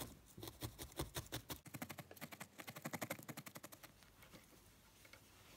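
Felting needle stabbing repeatedly through wool into a foam pad: a fast run of faint soft ticks, several a second, that dies away about four seconds in.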